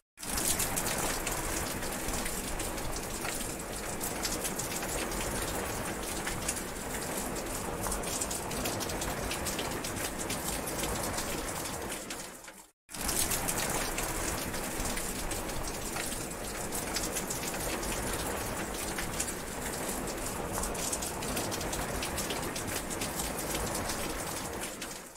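Steady heavy rain falling, a dense hiss of drops with fine patter. About halfway through it fades out to a moment of silence and then starts again at the same strength.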